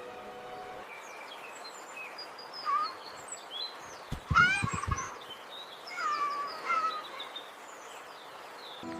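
Outdoor nature ambience with small birds chirping, plus two louder pitched calls, one about four seconds in and one about six seconds in.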